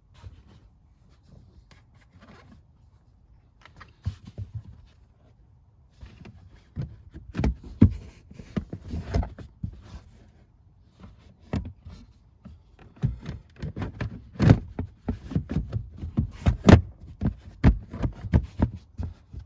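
Handling noises of car interior trim and carpet being refitted: a scattered series of knocks, clicks and rustles, sparse at first and busiest in the second half.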